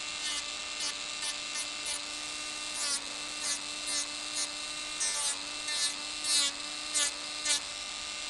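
Electric nail drill running with a steady whine, its bit grinding the gel in more than a dozen short touches about half a second apart, filing away lifted gel around the edge of the lifting.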